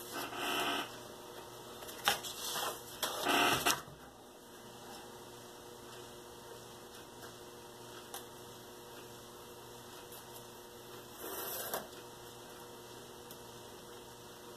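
Paper being handled and rustled on a workbench in a few short bursts, with a sharp tap about two seconds in as a plastic ruler is set down on the paper, and a last brief rustle near the end; otherwise quiet with a low steady hum.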